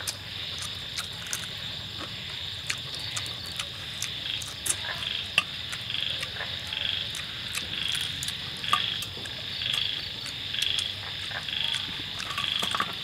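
Night chorus of frogs and insects: a steady high trill with a call repeating about once a second, and a few sharp clicks scattered through it.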